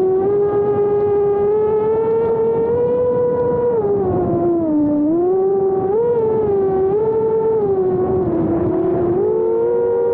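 5-inch FPV quadcopter's brushless motors, on a 6S battery, whining with a pitch that rises and falls as the throttle changes, dipping about five seconds in and jumping back up near six.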